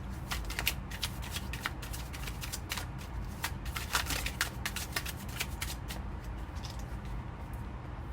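A deck of tarot cards being shuffled by hand: a rapid run of card flicks and clicks that thins out after about six seconds.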